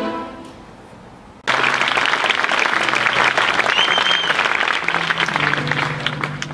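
Music fades out, then about a second and a half in, audience applause starts suddenly, with a short whistle from the crowd in the middle. The clapping thins near the end as a low steady instrument note comes in.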